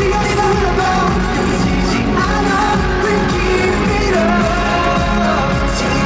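K-pop dance song performed live with singing over a loud backing track with a steady beat, played through a concert sound system.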